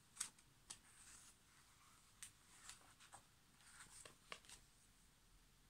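Near silence, broken by a scatter of faint, short paper rustles and taps as a page of a picture book is turned.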